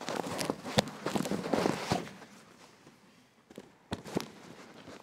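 Microphone handling noise: about two seconds of rustling and knocks, then a few scattered knocks.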